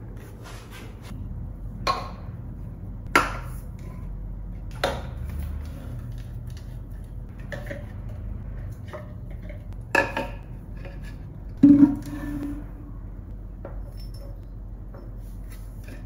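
Skincare bottles being set down one by one on a shelf: a handful of light clinks and knocks at irregular intervals, the loudest near the end with a brief low ring.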